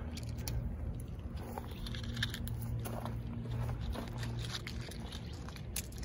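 Dry leaves and Mexican bird of paradise seed pods rustling and crackling in short, scattered clicks as a hand gathers pods from the bush and the leaf litter, over a steady low hum.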